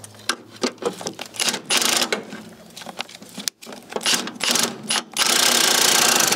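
Ratchet socket wrench working a stubborn engine mount bolt: scattered single clicks and metal knocks, then a fast continuous run of ratchet clicking from about five seconds in.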